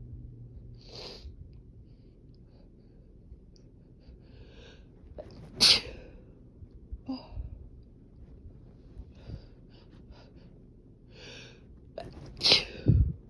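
A person in a sneezing fit: one sharp sneeze about halfway through, then a quick pair of sneezes near the end, with quieter breathing sounds between.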